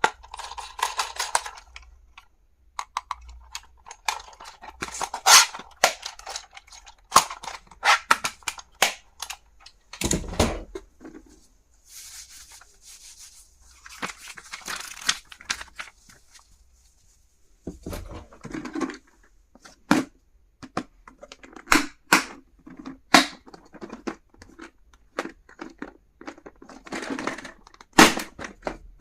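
Packaging being handled during an unboxing: wrapping crinkling and tearing in several stretches, among many sharp clicks and taps of small items being handled and set down.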